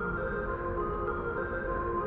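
Calm ambient background music of sustained, overlapping notes.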